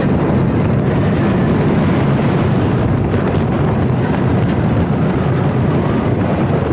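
Wooden roller coaster train running along its track at speed, a steady loud rumble with wind rushing over the microphone.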